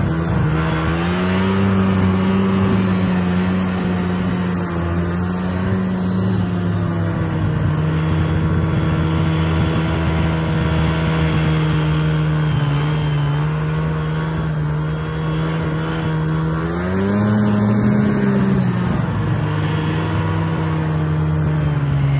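Snowmobile engine running steadily as the machine drives along a snowy trail. About three-quarters of the way through its pitch rises, then settles back.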